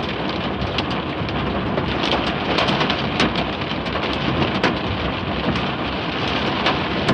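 Hail and heavy rain pelting down in a severe thunderstorm: a steady rush with many sharp, irregular clicks of hailstones striking.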